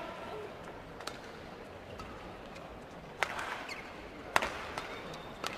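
Badminton rackets striking a shuttlecock in a rally: sharp cracks roughly a second apart, one faint early, then three louder ones from a little past halfway, the loudest near the middle.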